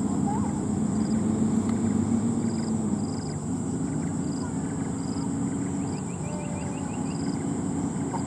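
Heavy diesel truck engine running at a steady speed, with a constant high insect drone and a short high chirp repeating about once a second.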